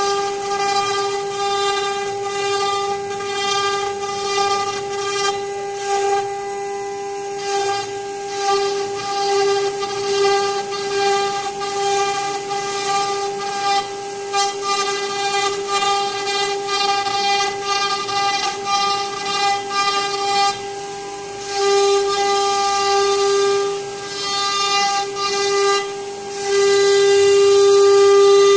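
CNC router spindle whining at a steady high pitch while its V-bit carves a wooden door panel, with the rasp of the cut running underneath. The whine grows louder near the end.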